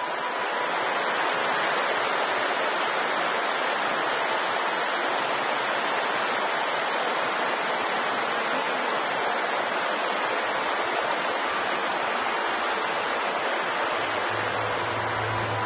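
Steady rushing of water in a cave, like a waterfall or fast stream; a low hum comes in near the end.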